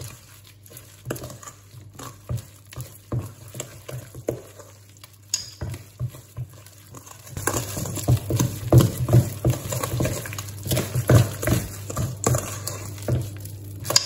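Wooden spoon beating a thick almond batter in a stainless steel mixing bowl: repeated scraping and knocking strokes against the bowl, fainter at first, then faster and louder from about halfway.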